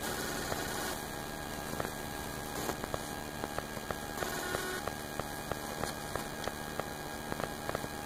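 Honeybees buzzing in a steady hum close to the microphone as their swarm is shaken out of a box into a top-bar hive.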